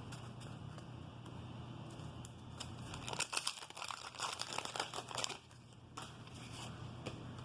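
Wax-paper card pack being torn open and crinkled: a burst of crackling paper rustle lasting about two seconds, starting about three seconds in.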